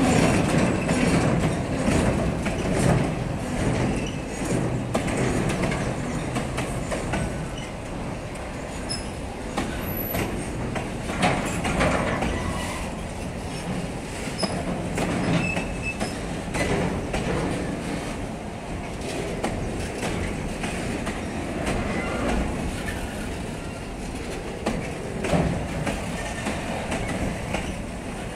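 Freight train's gondola wagons rolling past, their wheels clacking over rail joints in repeated knocks, with a few brief high wheel squeals.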